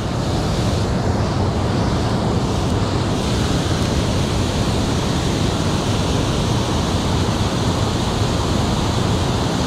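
Steady rush of water pouring over a low concrete dam's spillway into the pool below.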